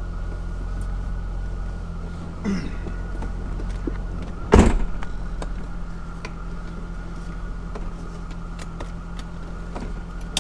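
A car engine idling steadily. A door shuts with a loud thump about four and a half seconds in, and there is a lighter knock at about two and a half seconds.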